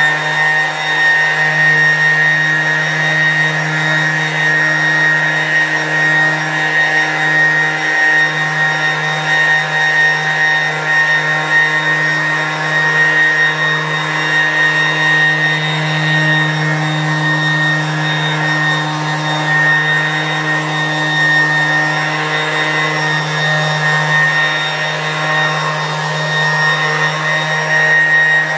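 Electric orbital sander running at a steady speed with its pad wrapped in rags, buffing paste wax into the cast-iron top of a table saw: an even, loud motor hum.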